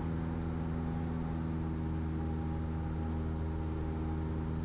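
Cessna 172 Skyhawk's piston engine and propeller droning steadily in flight, heard inside the cabin.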